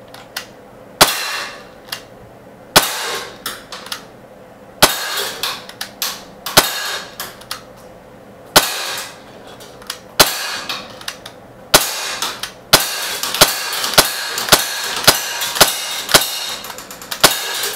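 Umarex Glock 19 non-blowback .177 CO2 BB pistol firing about twenty shots, each a sharp pop that trails off briefly. The shots come a second or two apart at first, then quicken to about two a second in the second half.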